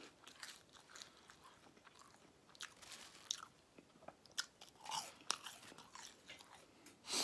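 Chewing and crunching of crinkle-cut french fries: irregular crisp crunches, the loudest near the end.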